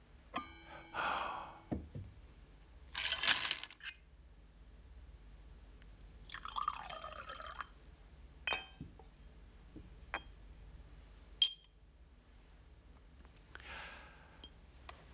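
Glassware and tableware clinking, with a vodka carafe being poured into a small shot glass about six seconds in, followed by a few sharp glass clinks.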